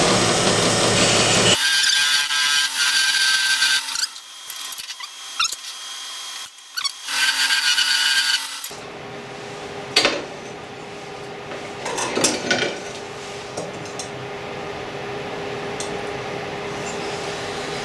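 Wood lathe spinning a small African walnut post while a turning tool cuts a tenon, loudest in the first second or so and coming in stops and starts up to about the middle. After that the lathe runs on more quietly, with a few short knocks.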